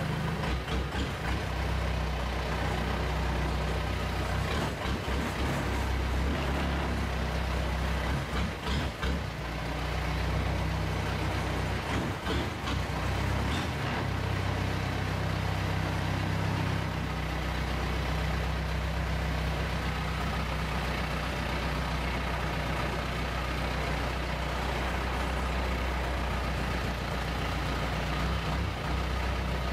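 Long-tail boat's engine, a car-type engine on a pivoting long propeller shaft, running as a steady low drone. Its note shifts a few times partway through.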